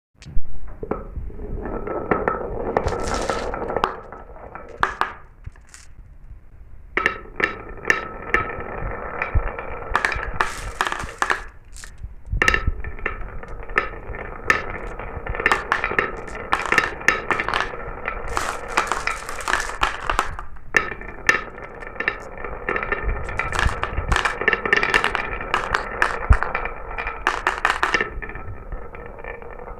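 Glass marbles rolling and clattering down a marble run track: a steady rolling rumble under many sharp clicks and clinks as they knock against the track and each other. The run eases off briefly a few seconds in and again near the middle.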